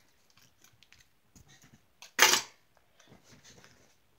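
Handling noise from a handheld camera being moved about: faint clicks and rustling, with one short, loud noise about two seconds in.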